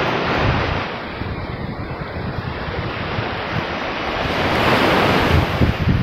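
Small surf washing on a sandy beach, a steady rush that swells louder about four to five seconds in, with wind buffeting the microphone in low thumps.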